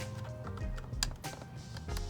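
Background music with a steady beat, with two sharp clicks, one at the start and one about a second in.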